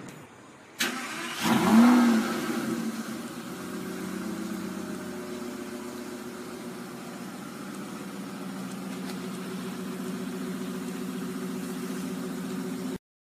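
Aston Martin Rapide S V12 starting: the starter engages about a second in, the engine catches with a brief flare of revs that rises and falls, then settles into a steady idle.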